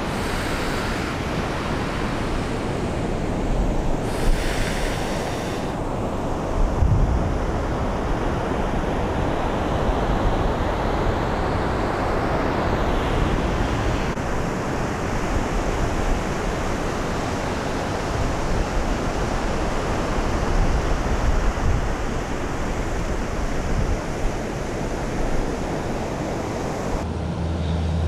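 Surf washing onto a beach in a steady roar of noise, with wind gusting over the microphone in uneven low rumbles.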